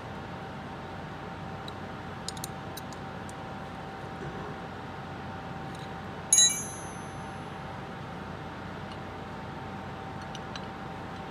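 A steel combination wrench set down on a concrete floor: one sharp metallic clang a little past halfway, ringing briefly with a high bell-like tone. Light clicks of steel tools and bolts being handled come before and after it, over a steady faint hum.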